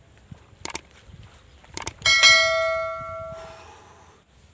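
Two sharp clicks, then a bell strikes and rings out, fading over about a second and a half: a subscribe-button sound effect of mouse clicks and a notification bell.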